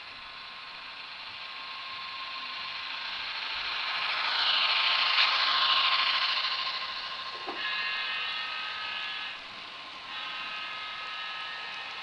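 HO scale model freight train rolling past on its track, the clicking and rattle of its wheels growing to a peak about five seconds in as the boxcars pass close by. It then eases to a lower running sound with steady high ringing tones over it, which drop out briefly near the end.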